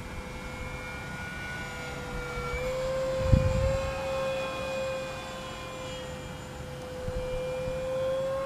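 Electric motor and propeller of an FMS Cessna 182 1.5m RC plane whining steadily in flight, its pitch rising slightly about two and a half seconds in and easing back later. A brief gust of wind rumbles on the microphone about three seconds in.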